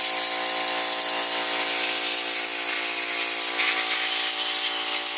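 A steady machine noise: a constant hiss with an unchanging hum under it, like a fan or motor running without let-up.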